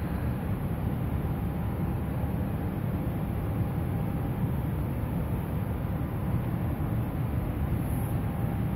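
Steady low rumbling background noise with a faint steady hum, unchanging throughout.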